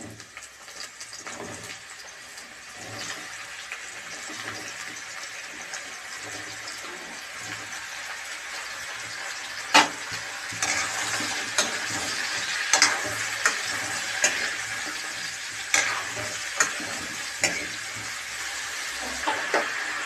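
Sliced button mushrooms sizzling in hot oil in a steel kadhai, the sizzle growing a little louder as they fry. From about halfway, a metal spatula clinks and scrapes against the pan every second or so as they are stirred.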